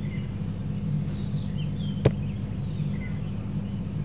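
Outdoor ambience: a steady low hum with a few faint, short bird chirps, and a single sharp click about two seconds in.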